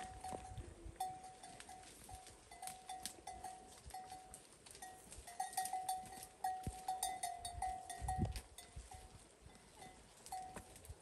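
A bell on grazing cattle clinking irregularly at one pitch as the animals move, most busily midway. A low dull thump comes about eight seconds in.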